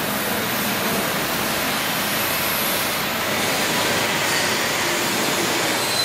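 Mushroom air-bubble washing machine running: a steady rushing noise from the air bubbling through its wash tank and its mesh-belt conveyor.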